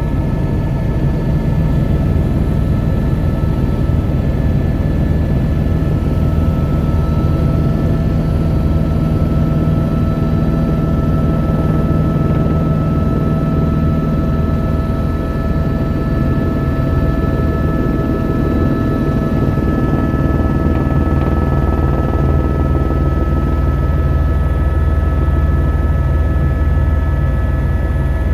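A helicopter in flight: a loud, steady drone of engine and rotor, a deep rumble with a few steady whining tones above it.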